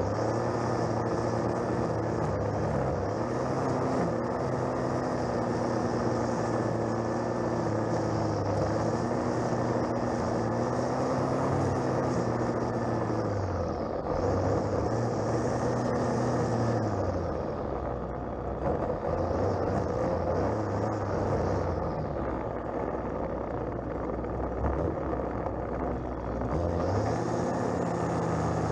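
A string trimmer's engine running at working speed, its pitch easing off and revving back up several times as the line cuts grass along a path edge. It drops toward idle for a few seconds past the middle and revs up again near the end.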